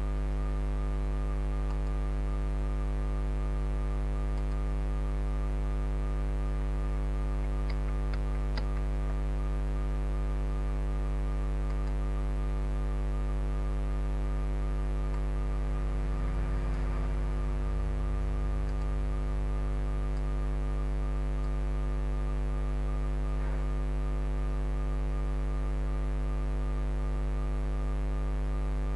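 Steady electrical mains hum, a low buzz with a ladder of overtones, with a few faint clicks about eight seconds in.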